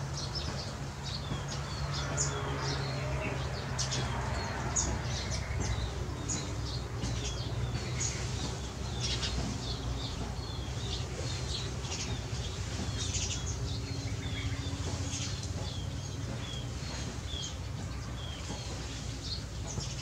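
A flock of small birds calling from the trees: many short, high chirps overlapping steadily, over a low steady hum.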